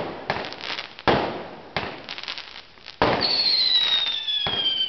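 Fireworks going off: several sharp bangs about a second apart, each trailing off in crackling. From about three seconds in, a long whistle slides steadily down in pitch over the bangs.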